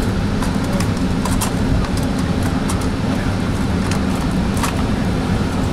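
Steady low rumble of a Metrolink commuter train running along the track, heard from inside the passenger coach, with scattered light clicks and rattles.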